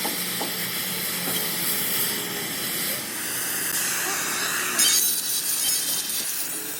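Electric arc welding on a truck axle housing: a steady crackling, sizzling hiss that turns brighter and louder about five seconds in.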